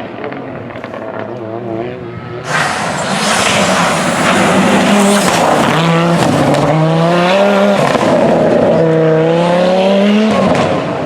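Audi Quattro rally car's turbocharged five-cylinder engine accelerating hard through the gears. The pitch climbs and then drops at each upshift, three times. It is quieter at first, then much louder about two and a half seconds in.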